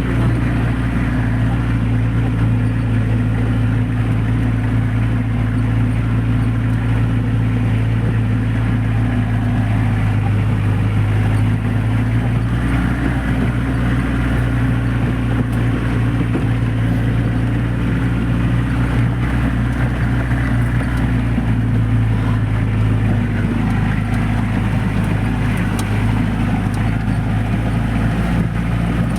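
Off-road jeep's engine running steadily as it drives along a rough dirt track, its pitch shifting slightly a couple of times with the throttle.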